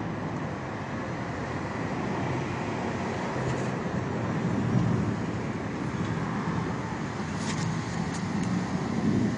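Steady low rumble of road traffic, with a few faint clicks near the end.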